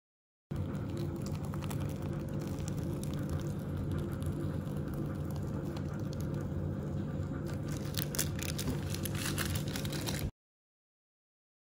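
Plastic piping bag squeezed to pipe whipped cream, with light crinkling and squishing clicks that grow busier near the end, over a steady low hum. The sound starts half a second in and cuts off suddenly.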